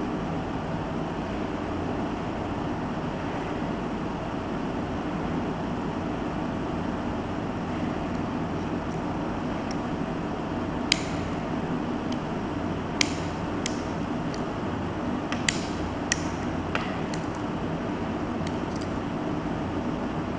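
Steady background hum and hiss. About eight short, sharp clicks come in the second half, as the parts of a small metal keychain knife-lighter-flashlight are worked by hand.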